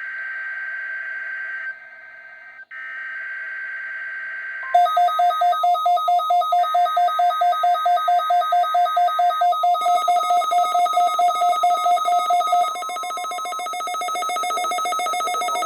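NOAA Weather Radio alert: the buzzing digital SAME header data bursts, then a weather radio receiver's alarm beeping rapidly, about four beeps a second, before settling into a steady tone. The sequence opens the required weekly test.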